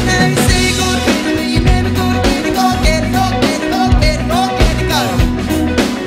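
Indie rock band playing live: a male lead vocal sung over electric guitars, bass guitar and a steady drum-kit beat.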